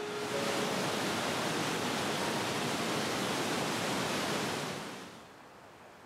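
Steady rush of a small waterfall and mountain stream, an even hiss of falling water that drops much quieter at about five seconds.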